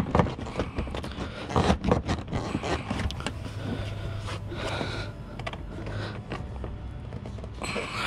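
Hard plastic interior trim panel of a Jeep Grand Cherokee SRT being worked loose by hand, with scattered clicks, knocks and plastic scraping as it is pried against its retaining clips.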